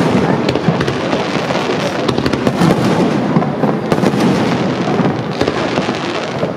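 Fireworks display: aerial shells bursting in a dense, continuous barrage of overlapping bangs.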